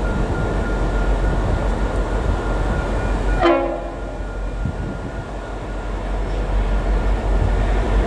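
Approaching diesel locomotives rumbling low, with one brief horn blast about three and a half seconds in; the rumble grows louder near the end as they draw closer.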